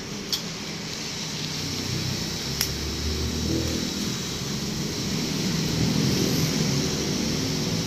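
Two sharp snips of hand scissors cutting grapevine leaves and shoots, one just after the start and one about two and a half seconds in, over a steady low rumble.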